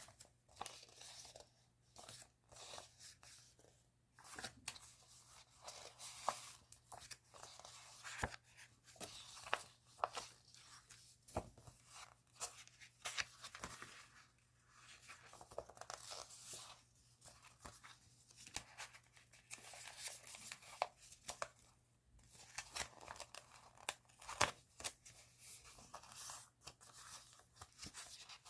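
Paper and plastic stationery packaging being handled and opened by hand: irregular rustling, crinkling and tearing with many small taps and clicks.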